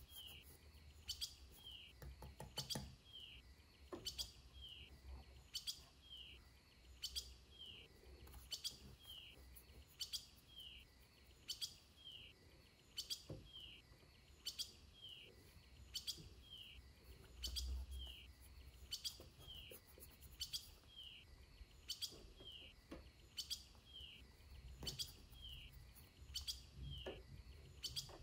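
Faint, evenly repeated bird-like chirps, a short falling note a little more than once a second, with a few soft knocks underneath.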